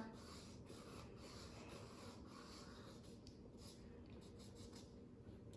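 Faint strokes of a crayon rubbing back and forth on paper laid over a leaf, making a leaf rubbing.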